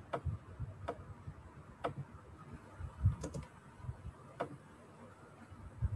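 A handful of separate, sharp computer keyboard clicks, roughly a second apart, with a couple of soft low thumps between them.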